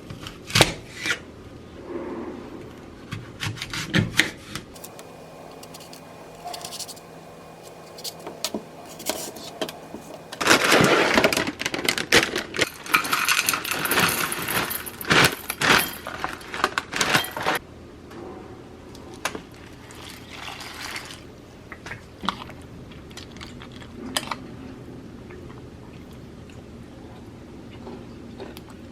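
Rubbing and scraping handling noises from food and tableware being moved about, with scattered sharp clicks and knocks. It is busiest through the middle of the stretch.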